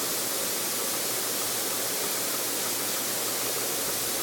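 Steady, even hiss that does not change, with no other sounds standing out.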